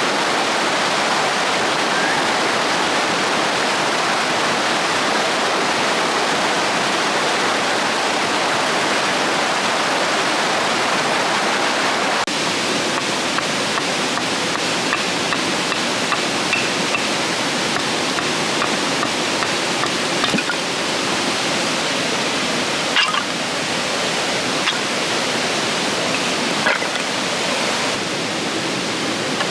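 River water rushing steadily. A few light clicks or knocks come through in the second half.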